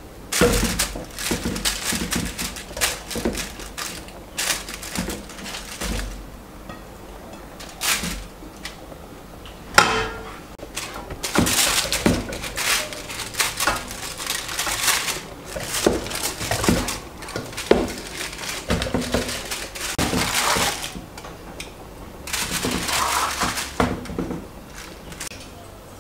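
Aluminium foil crinkling and rustling in irregular bursts as hands press it and arrange fish pieces in a foil-lined pan.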